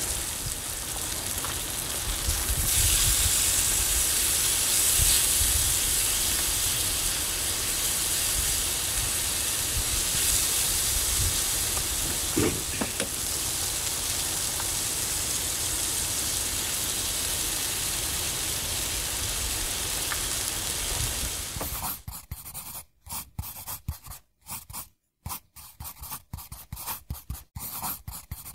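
Diced potatoes and meat sizzling steadily on a hot skottle griddle, with steam coming off the meat. Near the end the sizzle breaks up into short stop-start bits.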